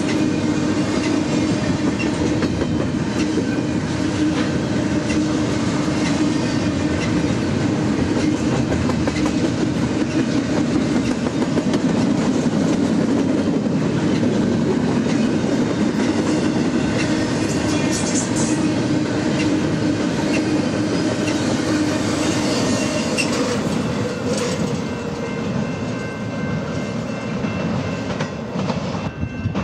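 Double-stack container well cars of a freight train rolling past, with a steady loud rumble and clatter of steel wheels on the rails. The sound eases somewhat in the last few seconds.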